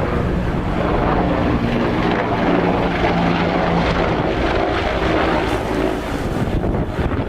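Helicopter flying overhead, a loud steady engine and rotor drone whose pitch sinks slightly as it passes, fading about six seconds in.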